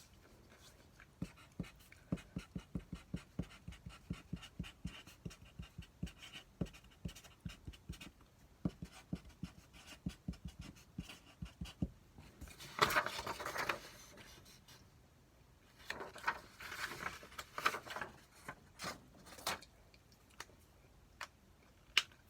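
Close-up eating sounds: steady, rhythmic chewing of stir-fried pork, about three or four soft ticks a second. Partway through come two louder bursts of rustling or scraping, then a few sharp clicks of utensils.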